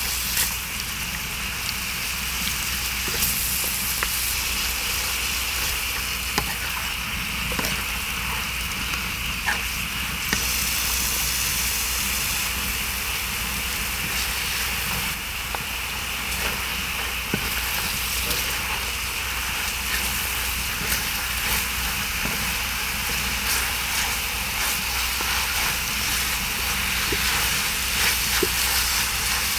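Pork sizzling as it stir-fries on a cast-iron cauldron lid, a steady frying hiss, with a wooden spatula scraping and tapping the hot metal in occasional short clicks.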